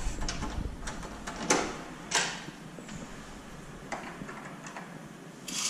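A few scattered light knocks and clicks, with two brief louder swishes about one and a half and two seconds in.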